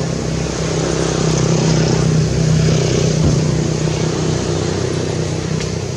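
A steady engine hum with a low drone, growing a little louder toward the middle.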